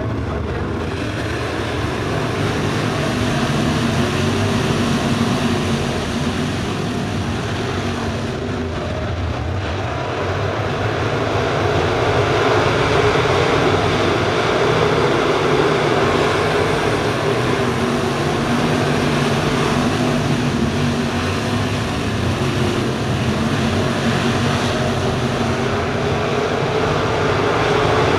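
A pack of Fastrak crate late model dirt-track cars racing, their crate V8 engines running together in a loud, continuous drone. The drone grows louder from about twelve seconds in as the field comes around.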